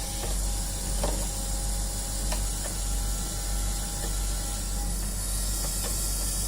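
Canon LiDE 120 flatbed scanner's carriage motor whining, with a few sharp clicks as the scan head judders and sticks instead of feeding smoothly: the carriage is out of alignment, which the repairer puts down to a worn motor gear and roller.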